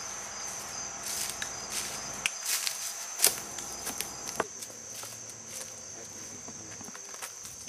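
Insects trilling steadily in woodland, with footsteps crunching through leaf litter and twigs; one sharp snap stands out about three seconds in.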